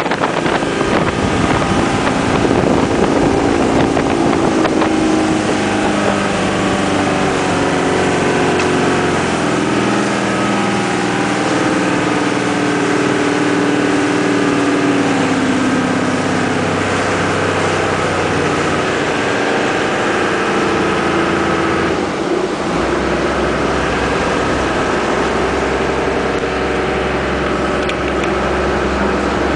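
Motorboat engine running under way, with wind on the microphone and the rush of water along the hull. About 22 seconds in the engine drops to a lower, steadier note and the water and wind noise lessen as the boat slows toward the harbour.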